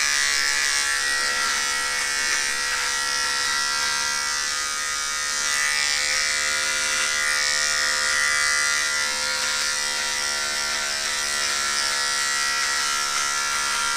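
Electric beard trimmer buzzing steadily as it cuts through beard growth along the jaw and neck.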